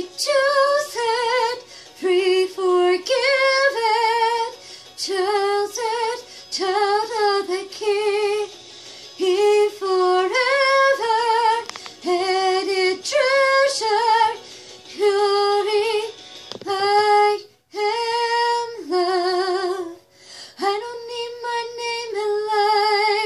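A woman singing solo, in phrases of short and held notes with vibrato on the held ones, breaking for breaths between phrases.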